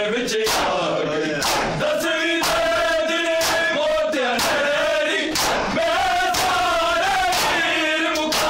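A group of men chant a mourning lament (noha) together in long held notes, while bare hands strike bare chests in unison about once a second: matam chest-beating keeping time with the chant.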